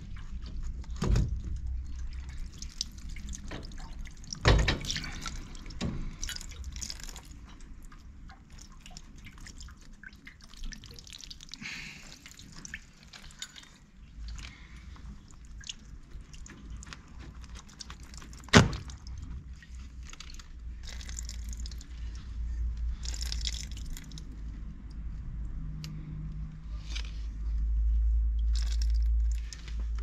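Water dripping from drained-down boiler pipework into a plastic tray, with clicks and knocks from hands working the fittings; the loudest knock comes about 18 seconds in.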